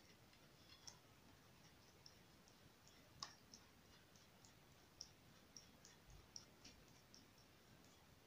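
Near silence with faint, irregular clicks and taps as hands handle a Zhiyun Smooth 4 handheld gimbal stabilizer's plastic body and controls.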